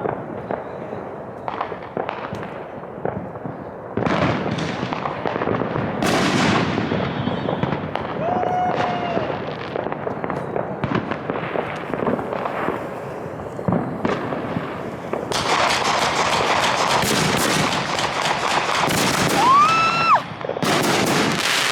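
Many fireworks going off: continuous popping and crackling of firecrackers and shells, heaviest in the last third. Two whistles cut through, one about eight seconds in and a louder rising one a couple of seconds before the end.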